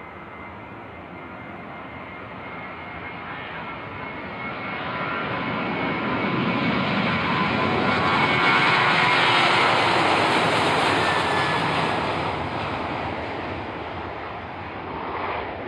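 Boeing 737-800's CFM56 jet engines under power as the airliner passes by: a whining rush that swells to its loudest about nine seconds in, then fades away.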